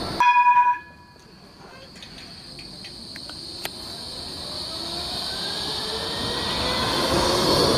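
A short loud pitched tone for about half a second right at the start, then an electric tram approaching on street track: its motor whine rises in pitch as it gathers speed, and its running noise grows steadily louder toward the end.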